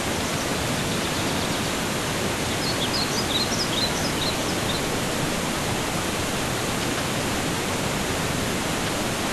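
Steady rush of running water, with a bird chirping several quick high notes about three to five seconds in.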